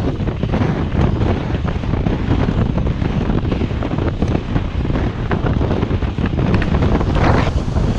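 Wind buffeting the microphone as a recumbent trike rolls along a road, an uneven low rush with a louder surge about seven seconds in.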